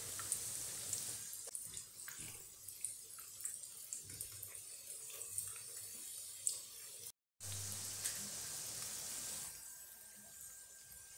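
Breaded, stuffed tortilla triangles shallow-frying in hot oil: a steady sizzle with small pops and crackles, and a fork clinking against the pan now and then as the pieces are turned. The sizzle breaks off for a moment about seven seconds in and dies down near the end.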